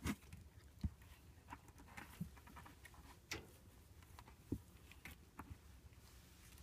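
Scattered light clicks and taps of 36-day-old rough collie puppies moving about and playing on a wire mesh floor panel and against a curved play tube, with a few louder knocks.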